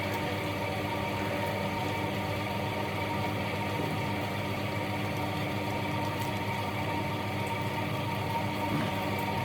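Steady motor hum with a few fixed tones, even in level throughout.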